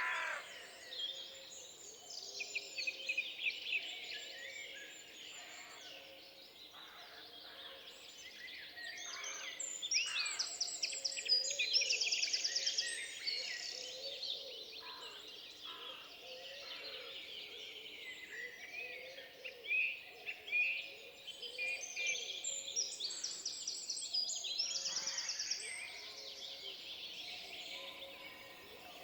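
Forest ambience with several songbirds singing together, chirps and whistles overlapping. A fast, high trilled song rings out twice, about a third of the way in and again later.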